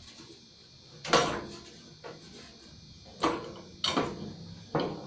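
Metal parts knocking together as a tractor steering column and its mounting bolts are worked into place: four sharp clunks, the first and loudest about a second in and the rest spread over the last two seconds, with a fainter knock between them.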